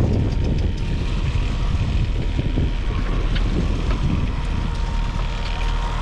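Steady low rumble of the boat's outboard motor running at trolling speed, mixed with wind buffeting the microphone, with a faint steady high whine throughout.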